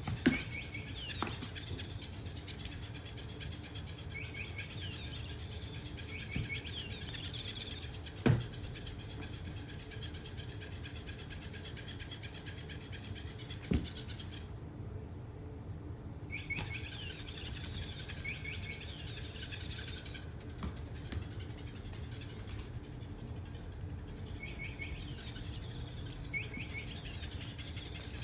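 Short, high bird-like chirps in quick little groups, repeating every few seconds over a low steady hum. A few sharp thumps fall between them, the loudest about eight seconds in and another near fourteen seconds.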